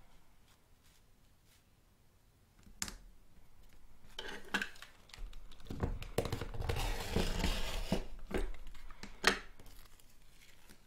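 A rotary cutter rolling through polyester satin on a cutting mat along a plastic grid ruler: a scratchy cutting sound lasting a few seconds from about four seconds in, with a couple of sharp clicks and fabric rustling around it.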